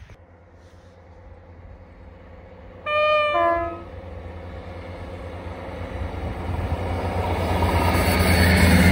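ScotRail Class 158 diesel multiple unit sounding its two-tone horn about three seconds in, a short higher note followed by a lower one. Its engine and running noise then grow steadily louder as it approaches.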